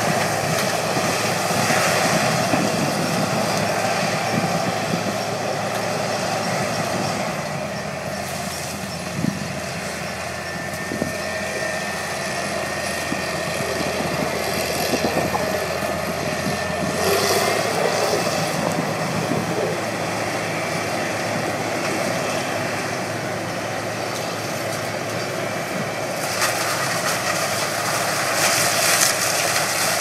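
Sugar cane combine harvester running as it cuts and chops cane, with the tractor hauling the cane wagon alongside: a steady, loud machinery din, with more hiss over the last few seconds.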